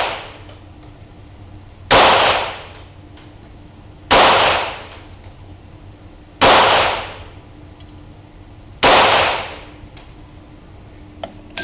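Four single shots from a Feinwerkbau AW93 .22 LR competition pistol held in a Ransom Rest, firing CCI Standard ammunition, spaced about two and a half seconds apart. Each sharp crack is followed by a brief echoing decay, and there are a few light clicks near the end.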